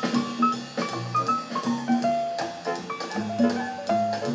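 A vinyl record of jazz-style music playing on a Retrolife UD006 all-in-one turntable through its pair of bookshelf speakers: a stepping melody line over bass notes and drums.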